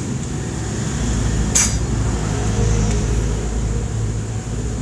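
Yamaha Aerox 155 scooter's engine idling steadily through a JVT titanium aftermarket exhaust, a low even hum, with one sharp click about a second and a half in.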